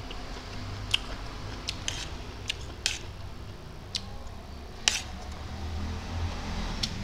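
Eating sounds: a metal spoon and fork clicking on a plate of rice and mouth clicks while chewing, about eight short, sharp clicks spread out, the loudest about five seconds in.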